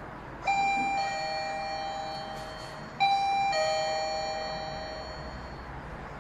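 Doorbell chime of a BARDI smart door lock: a two-note ding-dong, a higher note then a lower one, sounding twice about two and a half seconds apart, each ringing out and fading.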